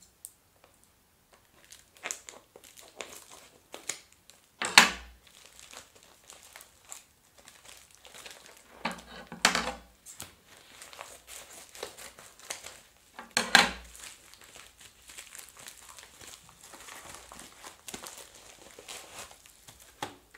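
Plastic packaging crinkling and rustling as a bubble-lined plastic mailer is handled and opened, with three louder, short bursts of noise about 5, 9 and 13 seconds in.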